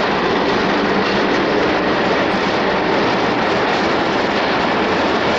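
Passenger coaches of the Sagordari Express rolling past on the rails, a loud steady running noise of wheels on track.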